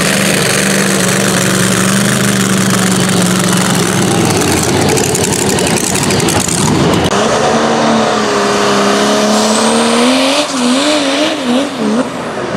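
Loud engine noise at a tractor pull: a steady engine drone first, then a turbocharged International diesel pulling tractor under full load, its pitch climbing and then wavering up and down repeatedly as it pulls the sled, with a faint rising turbo whistle.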